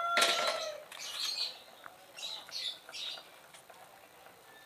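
A rooster's crow trails off in the first half-second, followed by several short, separate bird chirps over the next two seconds.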